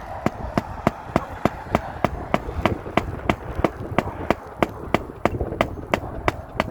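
Hammer tapping on roof shingles in a fast, even rhythm of about three strikes a second, over a low rumble of wind on the microphone.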